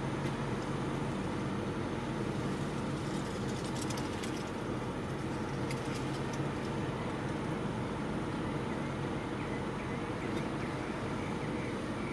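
A car idling steadily, heard from inside the cabin with the driver's window down. A few faint ticks come about four and six seconds in.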